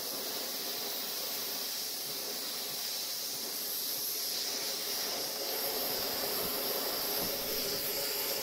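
Gas torch flame hissing steadily as it heats a seized bolt in a Ford flathead V8 engine block.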